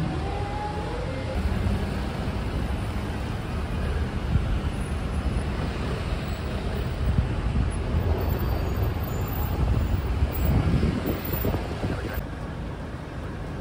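Busy city street traffic: the steady rumble of black cabs, cars and red double-decker buses running past, with one engine note rising about ten seconds in.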